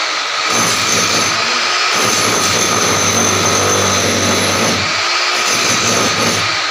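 A motor running steadily: a constant rushing noise with a fixed high whine over a low hum, the hum strongest in the middle.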